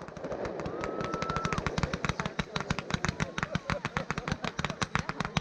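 Aerial fireworks going off in a rapid crackling string of sharp pops, about ten a second, growing denser after the first second.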